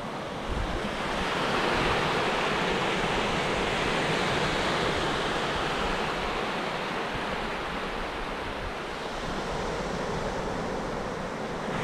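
Small waves breaking in the shallows and foamy swash rushing up and draining back over a sandy beach, swelling a second or two in and easing off later before rising again.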